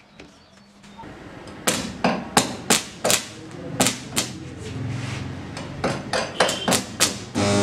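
Repeated sharp hammer blows on metal, about two a second, with a low buzzing hum rising between blows for a while midway and again near the end.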